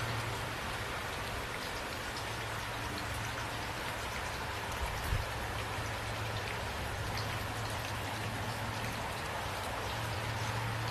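Steady rain falling, an even hiss with scattered drop ticks over a steady low hum, and a brief low thump about five seconds in.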